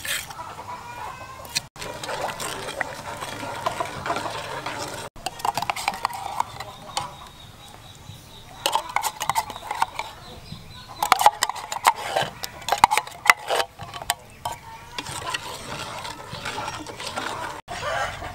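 Chickens clucking, with a spoon clinking and scraping against a metal cooking pot in sharp clicks, most of them in the middle of the stretch.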